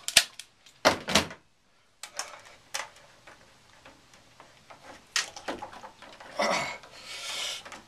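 Scattered clicks and knocks of plumbing tools and pipe fittings being handled, with a short stretch of rustling near the end.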